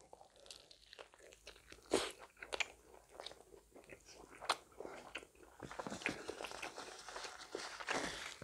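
A person biting into and chewing a Korean rice burger (pressed-rice bun with a Korean barbecue patty) close to the microphone: a run of short crunches and mouth sounds, the sharpest about two seconds in.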